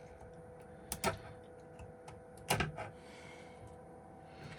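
A few small clicks and taps on a workbench, the two clearest about a second in and about two and a half seconds in, from small phone parts and tools being handled.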